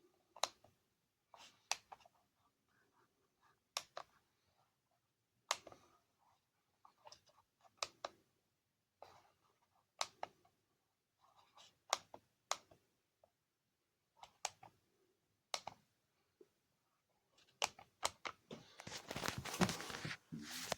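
Sharp single clicks every second or two, like buttons being pressed on a handheld Bosch KTS diagnostic tester while stepping through a test. Near the end comes a louder rustle of handling noise.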